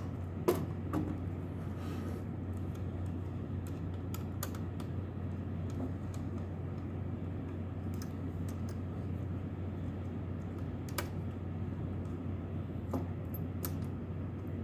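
Small metal clicks and taps, scattered irregularly, as screws are backed out of a computer module's case with a screwdriver, over a steady low hum.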